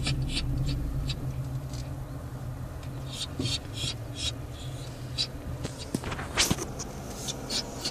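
A dog panting in short, irregular breaths over a steady low hum: an anxious dog.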